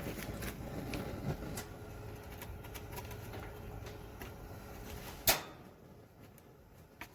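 Propane griddle burner being lit: a faint low hiss with a few light clicks, then one sharp igniter snap about five seconds in. The edge burner flickers but will not stay lit, a sign that this burner is faulty.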